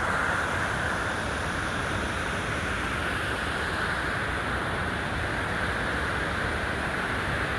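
Steady rushing of a large waterfall, an even wash of falling water with no change in level.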